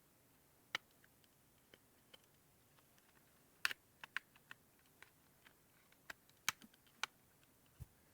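Irregular sharp clicks and taps of a pocket knife prying at a plastic clip on an electric razor's plastic housing, with a few louder snaps and a soft thud near the end.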